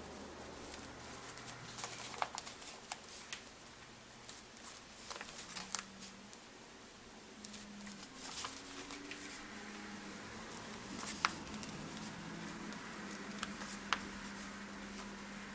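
Small paper stickers being peeled from a sheet and pressed onto a planner page: scattered soft clicks and paper rustles over a faint low hum.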